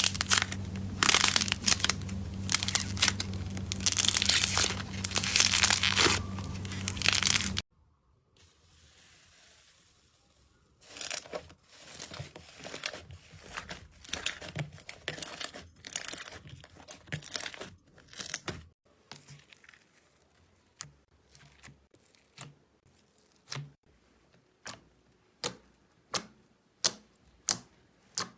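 Slime being squeezed and worked by hand, crackling and crinkling densely for about seven seconds. After a short pause come softer crinkly crackles. From about two-thirds of the way in there is a run of separate sharp clicks or pops that come faster toward the end.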